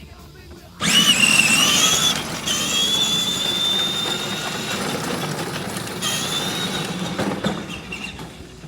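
Upgraded Power Wheels ride-on toy car's electric drive running at speed, a high-pitched motor and gear whine. It starts suddenly about a second in, drops out briefly once and fades near the end.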